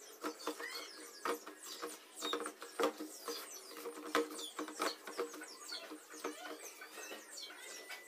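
Irregular small clicks and rustles of fingers plucking feathers from a slaughtered quail over a plastic bowl.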